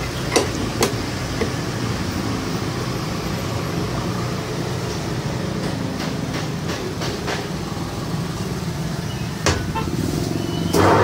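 A few sharp metallic clicks and knocks from the tool and hands working a motorcycle tyre bead on a tyre-changer machine: two near the start, one near the end, and lighter ticks in between, over a steady low hum.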